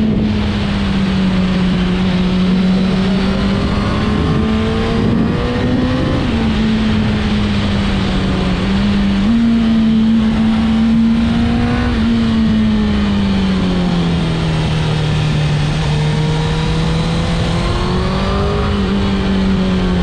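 Suzuki GSX-R1000's inline-four engine running at a steady cruise, its note rising and falling gently with the throttle, with a small step up about nine seconds in and a slow fall a few seconds later. Rushing wind noise runs under it.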